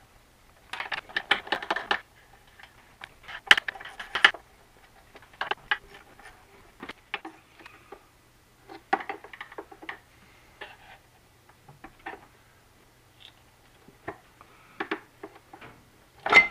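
Scattered metallic clicks and clinks of a hand tool working the valve-cover bolts on a Honda EU2000i generator's engine, coming in short clusters with pauses between.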